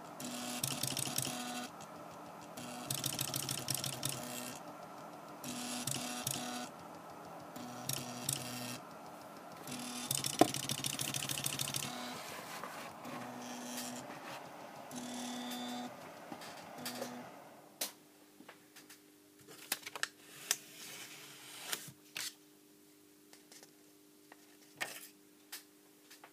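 Stepper motors of a homemade pen printer built from a DVD drive mechanism, whining and buzzing in bursts of a second or two with short pauses as they step the pen carriage. About two-thirds of the way through, the motors stop, leaving a steady low hum and scattered sharp clicks.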